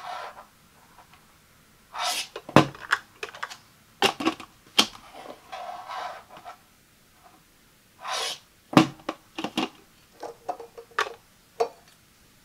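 Plastic parts of a DASH electric egg cooker being handled: the clear plastic dome lid and the stacked trays click, tap and knock against the base, with a few short sliding noises about two, four and eight seconds in.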